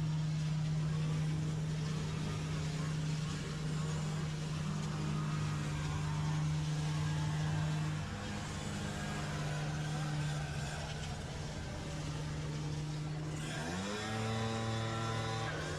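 An engine running steadily, shifting pitch about halfway through, then revving up sharply near the end.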